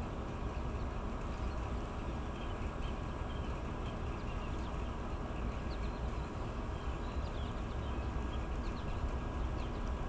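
Small birds chirping faintly, many short high chirps scattered throughout, over a steady low rumble of outdoor background noise.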